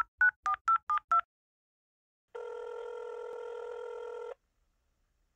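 Touch-tone phone keypad dialing the last six digits of a number, about four tones a second, then after a short pause a single two-second ringback tone as the call rings on the other end.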